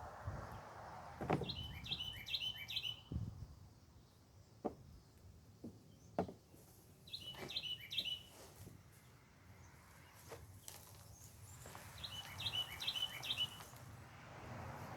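A songbird singing three short phrases, each a quick run of repeated chirps, about five seconds apart. A few faint knocks and clicks are scattered between them.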